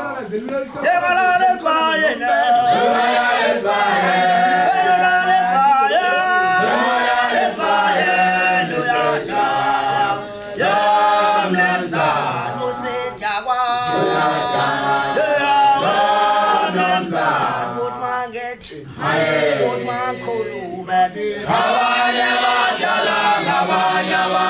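A choir singing in sustained harmony, several voices together.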